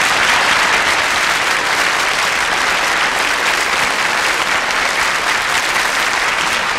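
A large audience applauding steadily, a dense, even clapping that neither builds nor fades.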